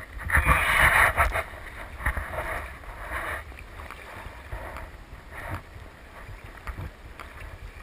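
Choppy sea water slapping and splashing against a kayak hull, with wind rumbling on the microphone; the loudest splash comes about half a second in, with smaller ones after.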